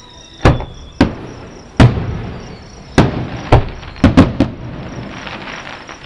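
Aerial fireworks shells bursting about a mile away: about eight sharp booms with rumbling echoes, three in quick succession around four seconds in, followed by faint crackling.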